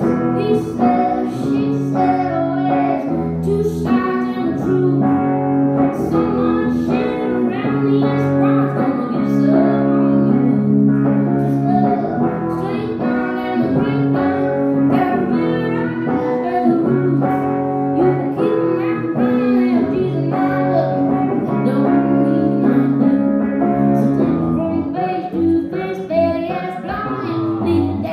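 Live band playing a song: a woman singing lead over guitar and drums.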